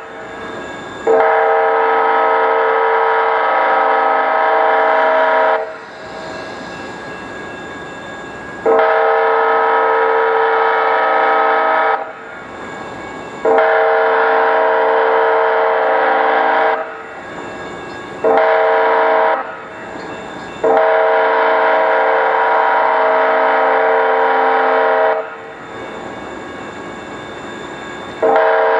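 DCTA A-Train diesel railcar's horn sounding a loud chord of several tones in repeated blasts of three to four seconds, with one short blast about two-thirds of the way through. The last four blasts make the long-long-short-long grade-crossing signal, and another long blast begins near the end. A steady rumble continues between blasts.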